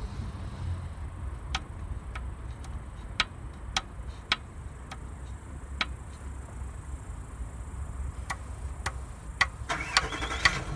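Sharp metallic knocks, one at a time at uneven intervals, with a quick cluster of rattling knocks near the end, as the VW Polo 1.4's pistons are rocked in their bores with the cylinder head off. This is piston skirt slap, which the owner thinks comes from the very short pistons. A steady low rumble runs underneath.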